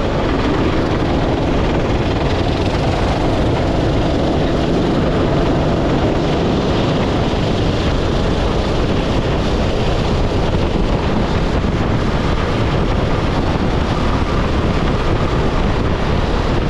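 Go-kart driven at racing speed, its engine noise mixed with wind rushing over the onboard camera's microphone in a steady, loud noise.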